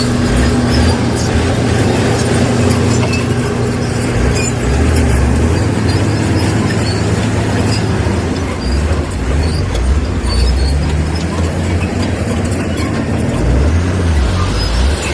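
Diesel engine of heavy earthmoving machinery running steadily with a low rumble that rises and falls in strength.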